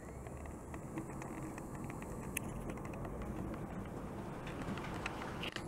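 HO-scale model trains running on the layout's track: a low steady rumble with scattered light clicks.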